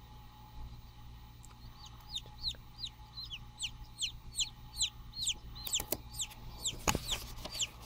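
Newly hatched chicken chicks peeping: a run of short, high, falling peeps, about three a second, starting a second and a half in. A single knock comes near the end.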